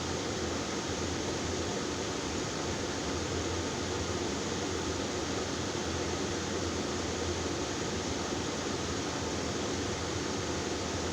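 Steady background noise: an even hiss with a low hum underneath that does not change.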